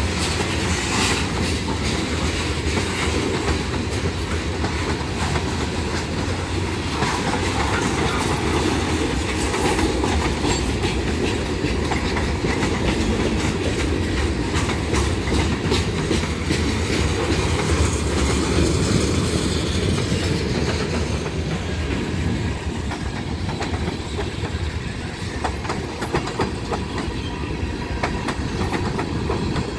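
Norfolk Southern freight train of tank cars and covered hoppers rolling past: a steady rumble of steel wheels on rail with rapid, irregular clicking of wheels over rail joints. The sound turns a little quieter and duller after about twenty seconds.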